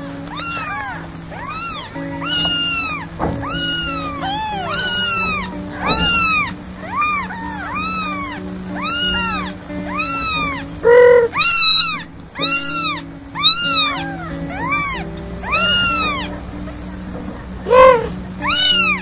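Very young kitten mewing over and over: high, thin calls that rise and fall in pitch, one or two a second, loudest about halfway through. Soft background music plays underneath.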